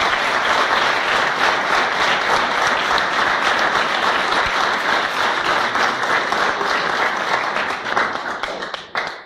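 Audience and panel applauding: dense, steady clapping that thins out and fades over the last second before cutting off.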